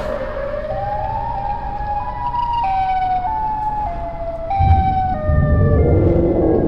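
A siren wailing in a two-tone pattern, jumping back and forth between two pitches and drifting lower overall. A deep rumble joins it about two-thirds of the way through.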